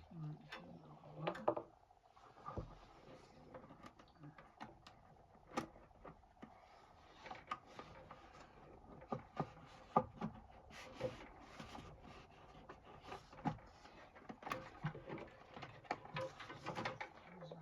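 Irregular clicks, taps and knocks of small metal and plastic parts being handled and fitted as a diesel air heater is reassembled after a glow plug change.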